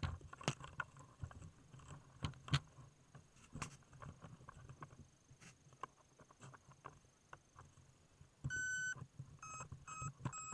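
Scattered clicks, taps and rubbing as fingers handle the action camera mounted under a model airplane. About eight seconds in comes one longer electronic beep, followed by three short beeps about half a second apart.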